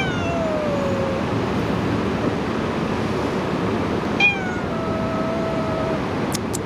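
Singapura cat meowing twice: a drawn-out meow that falls in pitch, then a second, longer one about four seconds in.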